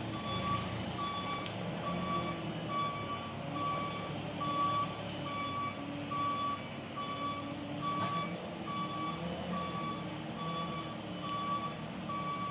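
Reversing alarm of a light diesel truck backing down a slippery hill after failing to climb it: a steady beep about one and a half times a second over the low sound of the engine running.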